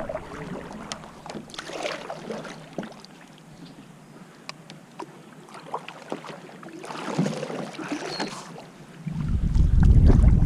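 Water splashing and lapping around a kayak, with scattered small clicks. About nine seconds in, wind starts buffeting the microphone with a loud low rumble.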